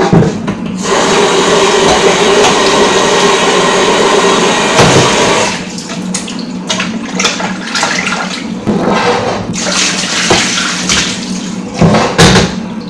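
Kitchen tap running hard into a bowl or sink for about five seconds, then stopping, followed by irregular splashing and sloshing as raw chicken is washed by hand in the water.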